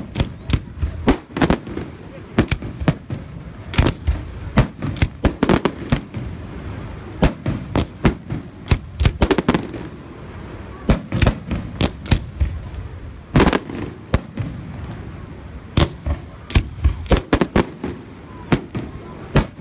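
Fireworks display: rockets bursting overhead in a rapid, irregular barrage of sharp bangs, several a second, with brief lulls between volleys.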